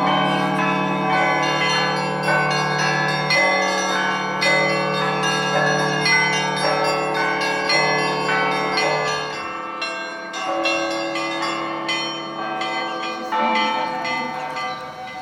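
Church bells rung in the Russian manner: a ringer strikes a set of bells of different sizes in a quick, continuous pattern, small high bells chiming over deep, sustained bell tones. The deepest tones drop out after about nine seconds while the smaller bells keep ringing.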